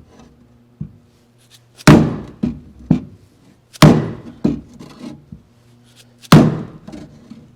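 Dead blow hammer driving a 2x4 wooden block against the inside of a 1952 Chevy Styleline Deluxe's steel door panel to knock out a dent: three heavy blows about two seconds apart, each followed by a few smaller knocks.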